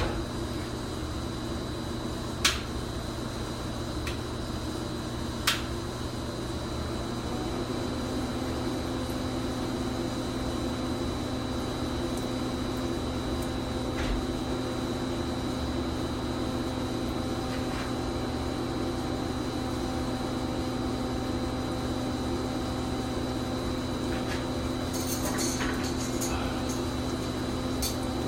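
Electric pipe-thawing machine running with a steady electrical hum and a thin high whine. Two sharp clicks come in the first few seconds, and there is a brief patch of crackling near the end.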